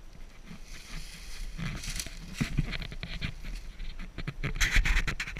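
Dry leaf litter crunching and rustling as a deer carcass is handled and moved over the forest floor, in irregular bursts with small crackles.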